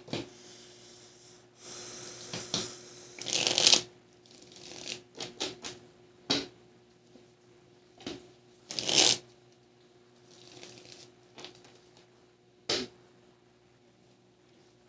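A tarot deck being shuffled by hand in irregular bursts: papery swishes of cards sliding over one another, with short sharp card snaps in between.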